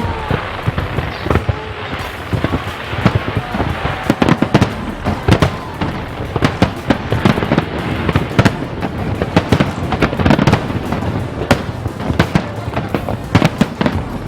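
Aerial fireworks display bursting continuously: a dense run of bangs and crackles, many a second, with no let-up.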